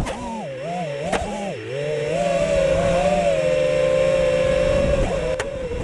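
FPV quadcopter's brushless DNT motors whining with the throttle. The pitch wavers up and down for about two seconds, holds a steady high whine until about five seconds in, then drops, with a few sharp ticks along the way.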